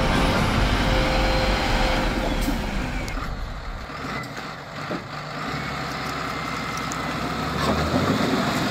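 Diesel engine of a heavy log-loaded timber truck working hard. It drops back about three seconds in, then builds again toward the end.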